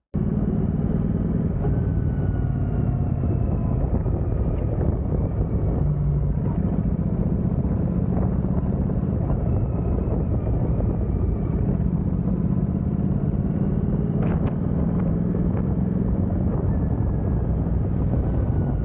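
A car driving: steady engine hum and road noise, the engine note dropping and rising again a few times.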